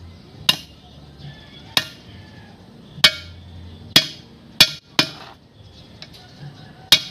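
Hammer blows on metal: about seven sharp, irregularly spaced strikes, each with a short ring, as a wheel bearing is driven into place.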